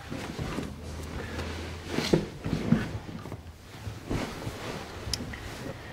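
Soft rustling and small knocks and creaks of people shifting and sitting down in a small room, with a few brief louder sounds about two to three seconds in.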